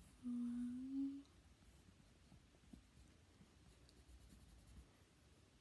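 A short hummed tone from a person's voice, rising slightly at its end, then faint light scratching and small taps close to the microphone.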